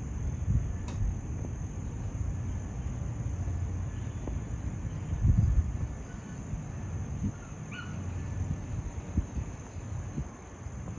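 Outdoor morning ambience: a steady high chirring of insects such as crickets over a low wind rumble that gusts about five seconds in, with a short bird chirp near the end.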